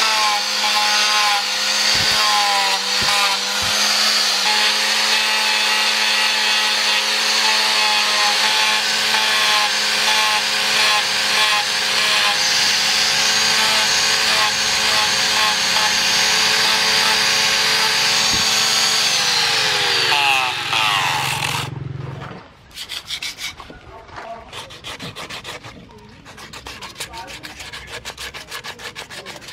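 Angle grinder with a sanding disc running steadily against a wooden knife handle, a constant motor whine that falls in pitch and dies away as the grinder is switched off about 20 seconds in. Then sandpaper is rubbed by hand over the handle in quick, repeated strokes.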